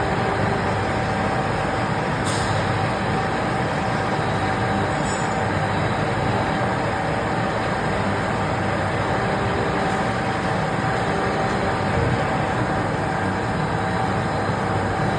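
CNC lathe running while turning aluminium: a steady machine noise with a constant tone.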